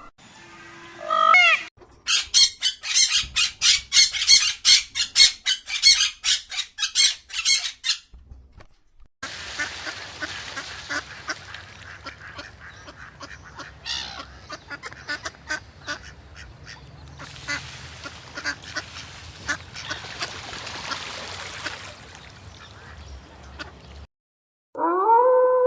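Ducks quacking: a rapid run of loud quacks, about three a second, for several seconds. After a short break comes a long stretch of softer, busy flock chatter with faint calls.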